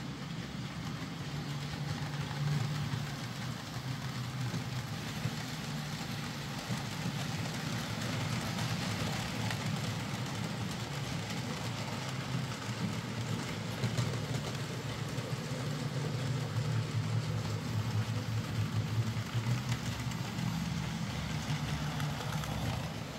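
Hornby J15 OO gauge model steam locomotive running on the track under its newly fitted motor: a steady low motor hum with wheel and track noise, a little louder in the second half.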